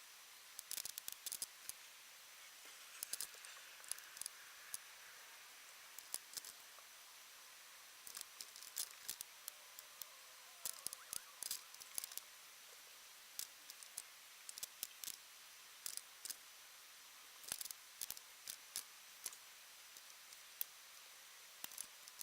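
Scattered sharp, light clicks and ticks at irregular intervals, in small clusters, over a faint steady high-pitched tone.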